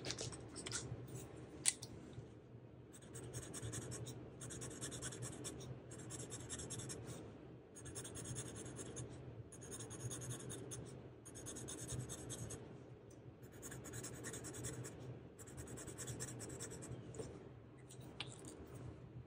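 Marker pen scratching on a paper savings-challenge chart as circles are colored in, faint, in spells of about a second with short pauses between.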